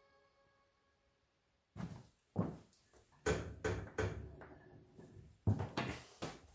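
A series of about nine irregular knocks and clunks, starting about two seconds in, like cabinet doors or panels being moved and set down.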